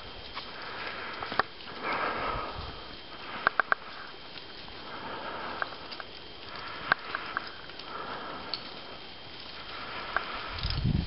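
A person breathing audibly close to the microphone, a soft breath every couple of seconds, with a few sharp clicks in between.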